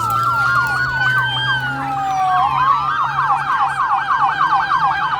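Sirens of several sheriff's patrol cars sounding at once, overlapping slow rising and falling wails that switch about halfway through to a fast yelp.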